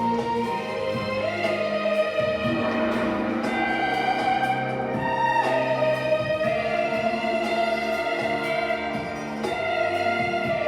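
Played-back orchestral music with a sustained, flowing melody over held chords, accompanying a Chinese water sleeve dance.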